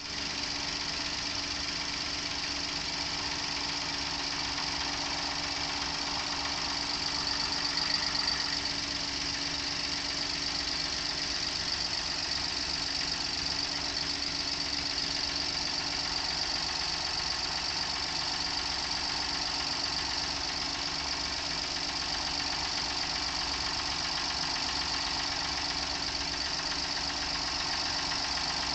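Daihatsu Move L175S engine running steadily at idle with an abnormal noise from the engine.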